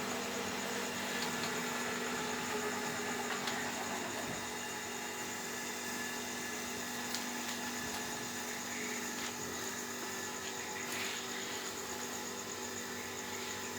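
Homemade automatic egg incubator running with a steady mechanical hum, with a few faint clicks.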